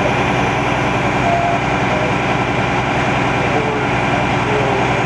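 A vehicle engine idling steadily close by: a low, even rumble that does not change.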